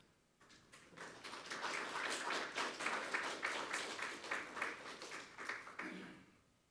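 Audience applauding: a patter of hand claps that builds up about half a second in, holds, then dies away near the end.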